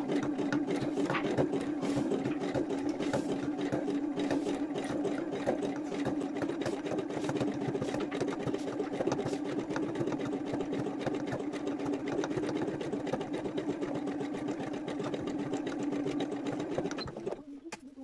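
Domestic electric sewing machine running steadily as it stitches through fabric, a motor hum with rapid needle ticking. It stops shortly before the end.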